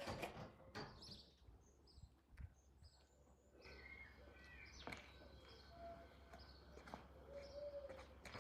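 Faint birds chirping over quiet outdoor ambience, with a few short clicks and knocks.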